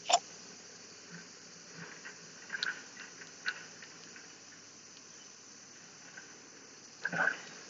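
Quiet outdoor background with one short lip smack, a kiss, right at the start, a few faint clicks in the middle, and a brief breathy mouth sound near the end.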